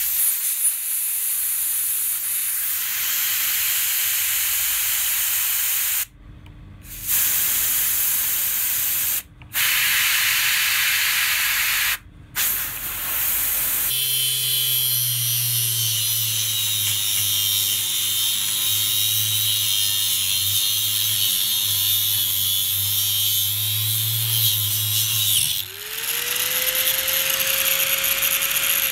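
Compressed-air blow gun hissing in four bursts onto a small metal motor casing to cool it. About 14 seconds in, an angle grinder takes over, cutting steadily into the motor's metal housing. About 25 seconds in the grinder comes free of the cut and its pitch rises as it spins up unloaded, then starts to fall as it winds down near the end.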